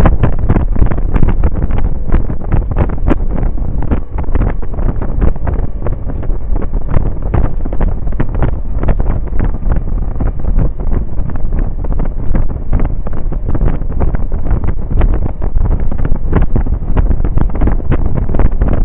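Wind buffeting the microphone of a camera on a Suzuki Burgman 650 maxi-scooter riding at road speed: a loud, steady low rumble broken by constant rapid gusty crackle, with road and engine noise blended in underneath.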